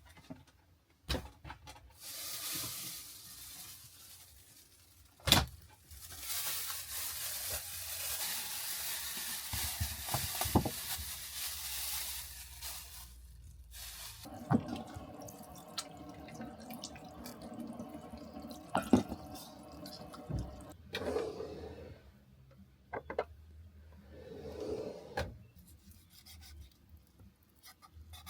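Water running in two spells, a short one and then a longer one of about seven seconds, followed by scattered clicks and knocks.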